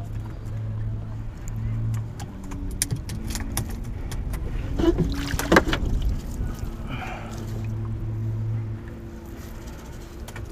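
A cast net being hauled in by hand over the side of a small boat: water pours off the mesh while the net's weights knock and rattle against the hull, with the loudest knocks about five to six seconds in. A low hum comes and goes underneath.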